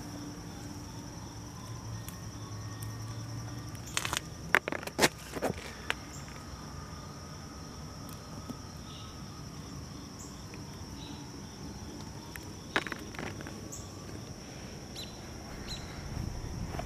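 Steady high-pitched chorus of insects trilling without a break. Sharp clicks and knocks stand out about four to five seconds in and again near the end.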